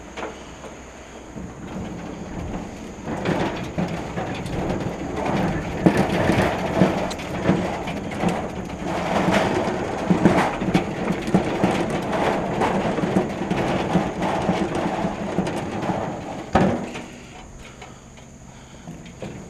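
Metal gas grill rattling and clattering as it is pushed across concrete. A single sharp knock comes near the end, and the rattling dies down after it.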